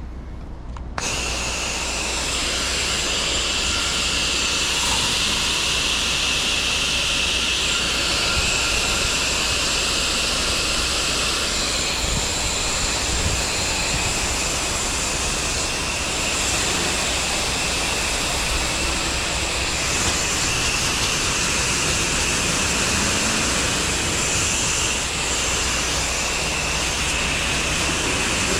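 Pressure washer spraying: a loud, steady hiss of the water jet with a high whine, starting abruptly about a second in over a low machine hum.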